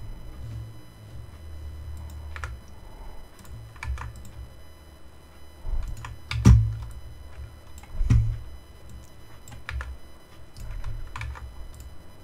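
Computer keyboard keys tapped sparsely, a few short clicks at a time, with two louder thumps about six and a half and eight seconds in.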